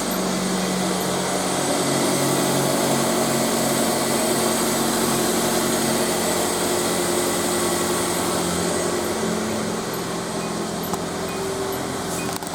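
Car engine idling steadily just after a tune-up, running smoothly with no rattling.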